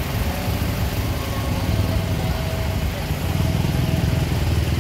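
Motor vehicle engine running steadily in a low rumble, getting a little louder about three seconds in as it comes closer.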